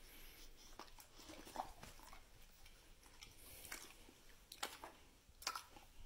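Near silence, with a few faint, scattered clicks and smacks from a dog chewing a small treat.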